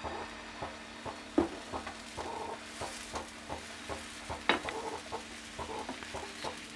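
A metal spoon pouring dosa batter onto a hot pan and spreading it round, with two sharp clicks of the spoon against the pan, about a second and a half in and again about four and a half seconds in. A steady low hum and short repeated calls sound in the background.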